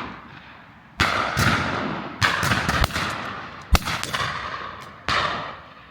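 Shotguns firing on a driven pheasant shoot: about half a dozen shots in quick succession, a second or so apart, each ringing on as it dies away.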